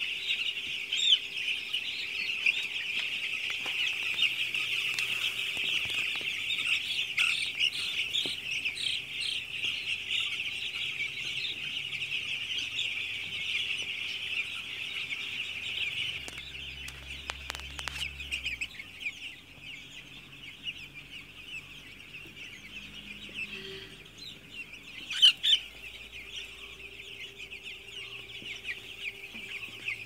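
A large flock of young chicks peeping continuously, a dense high-pitched chorus that thins out a little after halfway. A few sharp knocks stand out, the loudest about three-quarters of the way through.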